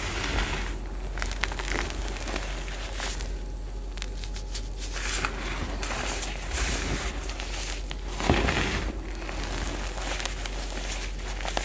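BSN reformed gym chalk being crushed and crumbled by hand into loose powder: irregular crunching and crackling as the pressed chalk breaks up, with a louder crunch about eight seconds in.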